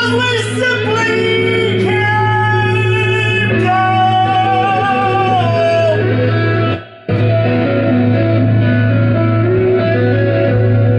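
Guitar music with a gliding, wavering lead melody over a steady low held tone. The sound drops out for a moment about seven seconds in.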